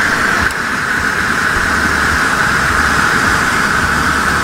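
Hand-held green Bengal flare burning with a loud, steady hiss as its flame and sparks jet out.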